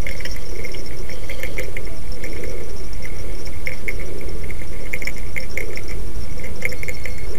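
Frogs calling in a chorus, with clusters of short rattling croaks every second or so, over a steady low rumble.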